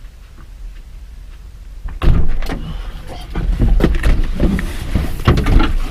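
Car door opened about two seconds in, then a string of clunks and rustling as the driver climbs into the seat and handles his keys, heard from inside the cabin.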